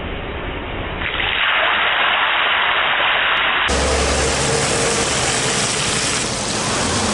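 Fried tilapia and tomato-chili sauce sizzling in a frying pan: a steady hiss that changes abruptly about a second in and again just before four seconds in.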